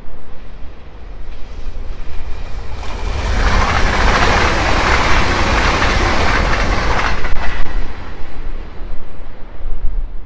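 A Hitachi Class 802 express multiple unit passing at speed: the rush of the train and its wheels on the rails swells about three seconds in, stays loudest for about four seconds, then fades away. Wind buffets the microphone throughout.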